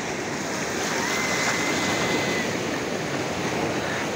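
Steady wash of small surf waves and lapping sea water in the shallows, an even hiss with no distinct breaks.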